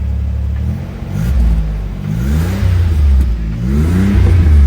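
Toyota pickup's 3.0 V6 running through a newly installed budget muffler: steady idle, then revved three times, the last rev the loudest, with a little growl. This is the sound test of the new exhaust, which replaced a leaking muffler.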